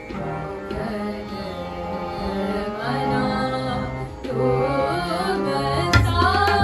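Sikh devotional kirtan: two women's voices singing a wavering melody over the steady reedy tones of two Yamuna harmoniums, with tabla accompaniment. The tabla strokes come in sharper and heavier about six seconds in.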